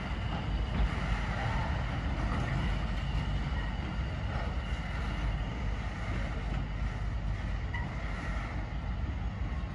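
Puffing Billy narrow-gauge steam train running away along the track, a steady low rumble that fades slightly as it recedes.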